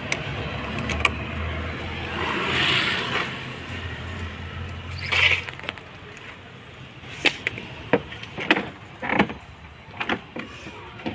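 Green engine coolant spurting out of a radiator hose as it is pulled off with hose-clamp pliers: a rushing hiss about two seconds in and a shorter one about five seconds in, over a steady low hum. Then several sharp clicks and knocks of tools against metal.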